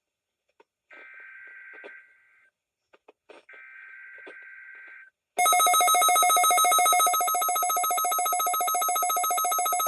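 NOAA Weather Radio SAME digital header played three times, as three short raspy data bursts, through a Midland WR400 weather radio. About five seconds in, a loud, rapidly pulsing electronic warning alarm sounds for the weekly test.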